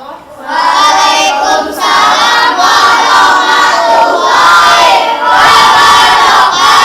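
A group of children's voices shouting together in unison, loud, in short phrases with brief breaks between them.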